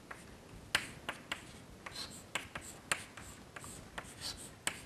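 Chalk writing on a blackboard: a run of irregular sharp taps and short scratchy strokes as the letters and symbols are drawn.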